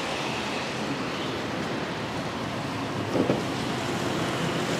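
Steady noise of road traffic going by, with a short, brief sound about three seconds in.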